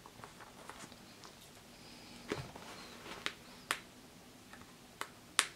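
Handling noises from a running shoe being turned over in the hands: a handful of sharp, light clicks and taps, spaced unevenly, over quiet room tone.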